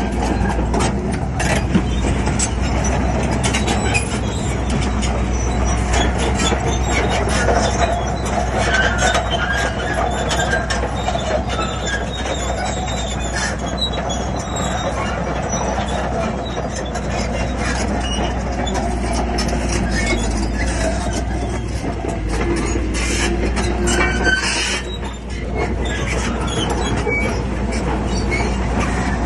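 Shantui crawler bulldozer working: a steady low diesel rumble under continuous clanking and squeaking of its steel tracks.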